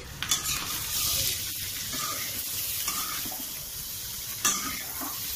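Boiled potato chunks frying in hot mustard oil in a metal kadhai, sizzling steadily, while a metal spatula scrapes and turns them against the pan, with sharper scrapes near the start and about four and a half seconds in.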